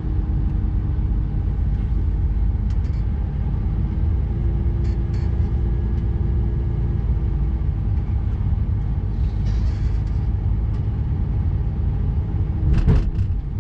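Plow truck's engine running steadily with a low rumble and a held hum. A few light clicks are heard, and there is a louder knock near the end.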